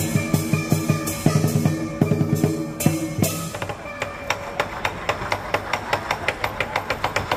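Chinese dragon-dance percussion, drums and cymbals, beating a steady rhythm of about three strikes a second. About three and a half seconds in it changes to faster, brighter strikes of about five a second.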